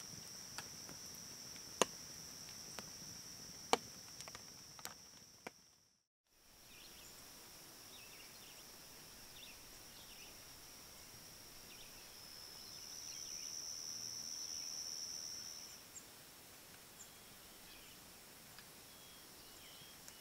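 Crickets trilling steadily at night over a campfire crackling with sharp pops. After a brief silence about six seconds in, a quiet lakeside dawn: the high insect trill goes on, swells for a few seconds near the middle, with faint bird chirps.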